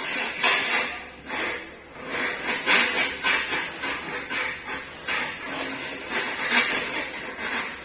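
Irregular metallic clattering and jingling knocks, a few each second, uneven in strength.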